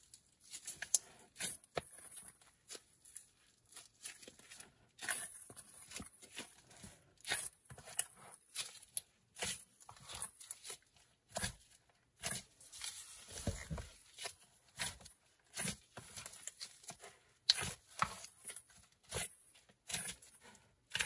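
Clear slime loaded with neon sprinkles and glitter being stretched, folded and pressed by a gloved hand, giving irregular sticky pops and crackles in short runs.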